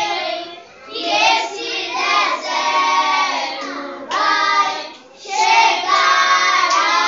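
Children singing together, the song broken by short breaths about a second in and again about five seconds in.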